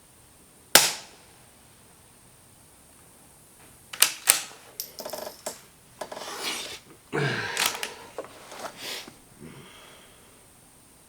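A single suppressed .22 LR shot from a Ruger Precision Rimfire bolt-action rifle cracks about a second in and dies away quickly. A few seconds later comes a run of sharp clicks and short metallic scrapes as the bolt is worked to eject the case and chamber the next round.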